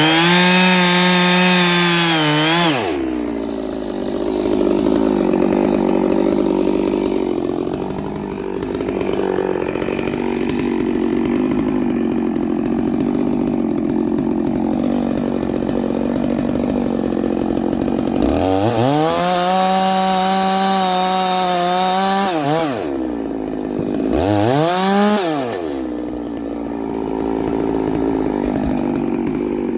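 A Neo-tec NS892 two-stroke chainsaw with .404 chain runs at full throttle, then drops in pitch as it bogs into the wood and cuts under load for about fifteen seconds. It comes free and screams at high revs again, gives a quick rev, then settles back into the cut.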